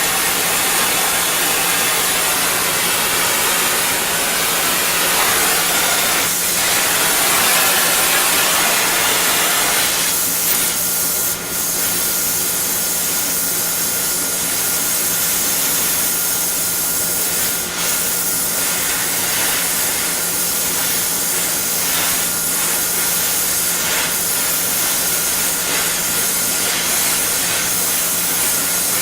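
Steady hiss of a gas torch flame heating the new swivel pad on a C-clamp screw so the pad can be crimped on, with a few light metal knocks.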